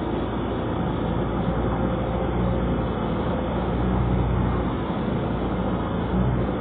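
Excavator's diesel engine running steadily, a low engine hum with small rises and falls in level.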